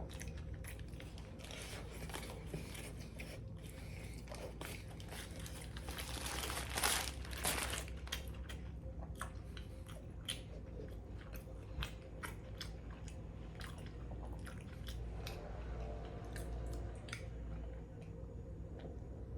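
Person biting and chewing a crisply toasted Subway sandwich, with many small crunches and a louder crunch about seven seconds in.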